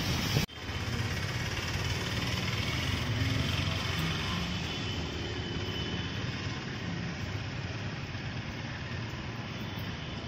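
Street traffic: cars driving past on a wet, slushy road, with tyre hiss and engines running. The sound breaks off sharply for a moment about half a second in.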